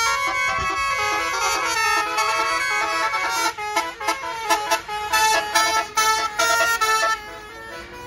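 Basuri telolet horn on a tour bus playing a melody of pitched horn notes: held, changing notes at first, then a run of quick short toots from about halfway, stopping abruptly about a second before the end.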